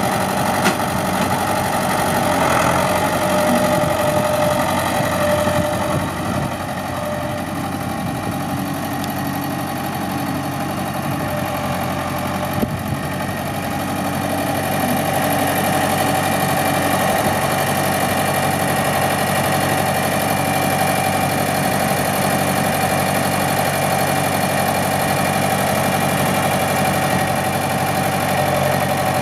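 Ford 6600 tractor's diesel engine idling steadily, a little louder from about halfway in.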